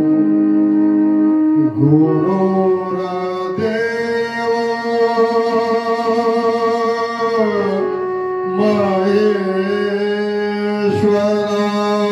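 A man singing a Marathi devotional song to Vitthal in a powerful voice, holding long drawn-out notes that glide from one pitch to the next, with instrumental accompaniment.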